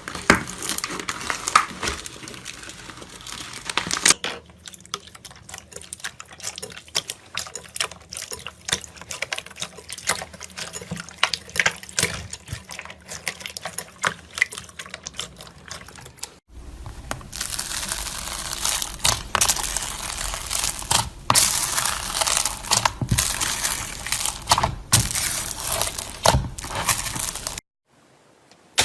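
Slime being squeezed, stretched and poked by hand, giving a run of wet, sticky clicks and crackles. The sound changes abruptly about four seconds in and again about sixteen seconds in, as clips change, and drops out briefly near the end.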